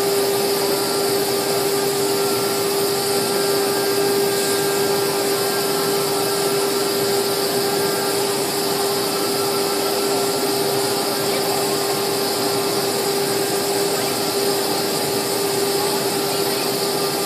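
CNC router spindle running with a steady high whine as its small pointed bit cuts grooves in a plastic sheet, over a steady hiss of cutting noise.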